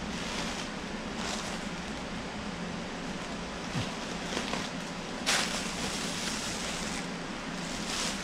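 Plastic air-cushion packing and a plastic bag crinkling in bursts as they are pulled out of a cardboard box and handled, the loudest crinkle about five seconds in, over a steady low hum.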